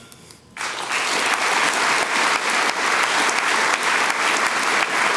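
An audience applauding, starting about half a second in and going on steadily as a dense patter of many hands clapping.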